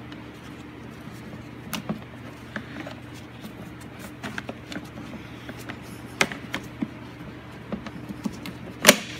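Scattered light plastic clicks and knocks from a pickup's factory plastic air box as a small plastic piece is handled and fitted back onto it, with a sharper click near the end. A steady low hum runs underneath.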